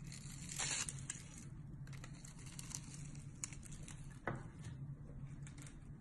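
Utility knife blade cutting and scraping into a dry bar of soap, with crisp, crackly strokes as the soap flakes off in shavings. The loudest cluster of strokes comes about half a second in, and a single sharp stroke comes just past four seconds.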